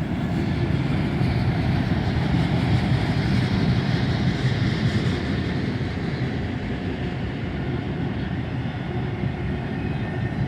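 Northbound freight train of autorack cars rolling past, a steady noise of wheels on rail, a little louder in the first half.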